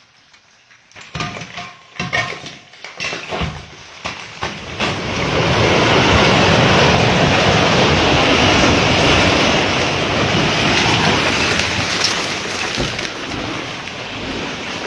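Heavy machinery at work: a run of sharp knocks, then a loud, steady clattering rumble from about five seconds in.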